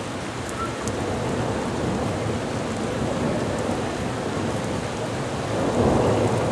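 Heavy rain pouring down steadily in a thunderstorm, with a low rumble of thunder swelling near the end.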